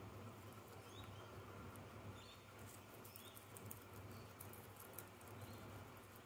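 Guinea pigs chewing fresh parsley: faint, quick crunching clicks, thickest from about two and a half to five seconds in.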